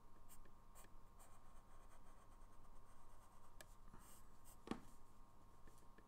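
Faint scratching of a coloured pencil crayon on paper in short shading strokes, with one soft knock about three-quarters of the way through.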